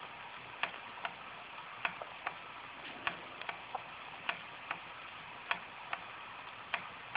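Antique Schoenner vertical live-steam engine running: a steady hiss with sharp metallic ticks from its mechanism, about two a second and a little uneven.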